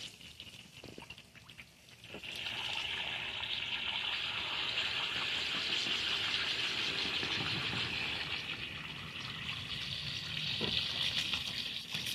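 Water from a garden hose rinsing out a gutted sheepshead's body cavity, a steady hiss that starts about two seconds in.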